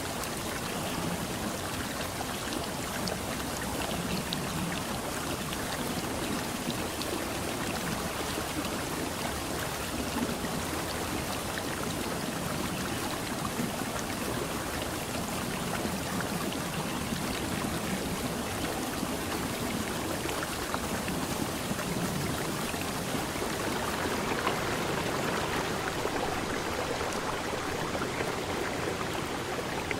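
Steady rushing water, an even hiss of natural water noise.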